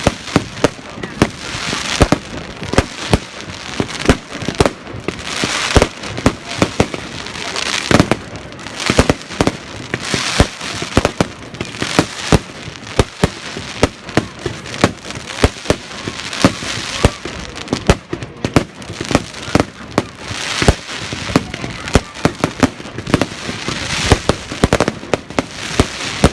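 Fireworks display: an irregular, nearly constant stream of sharp bangs from bursting fireworks, often several a second, over a crackling hiss that swells from time to time.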